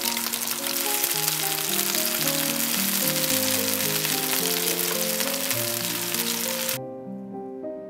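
Slices of beef sizzling in hot oil in a frying pan over high heat as they are turned with a spatula. The sizzling cuts off suddenly near the end, leaving background music of soft melodic notes.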